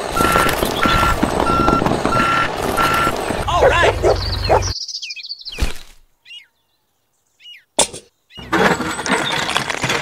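Truck reversing alarm beeping steadily, about three beeps every two seconds, over a running truck engine; the beeps stop about three seconds in and the engine sound cuts off suddenly just under five seconds in. Brief high chirps and a sharp click follow, then a burst of hissing noise near the end.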